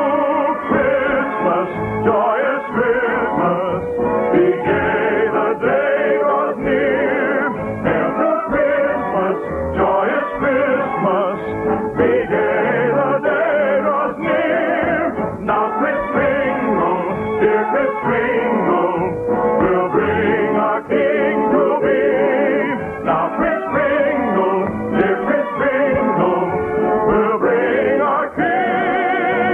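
Orchestra and voices performing an operetta number, the singing carried with wide vibrato, in an old radio broadcast recording with a muffled, narrow sound.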